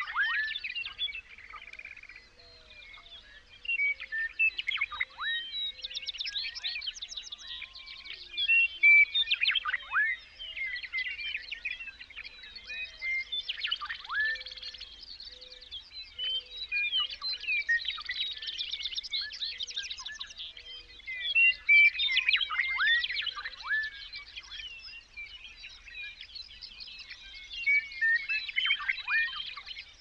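A chorus of songbirds singing, many overlapping chirps and trills with sharp downward-swooping notes, swelling in bursts every few seconds. A faint low note repeats about twice a second beneath them through the first half.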